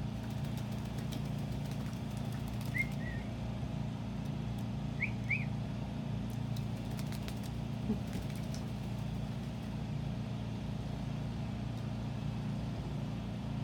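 A steady low hum, with a few short high chirps about three and five seconds in and scattered faint clicks.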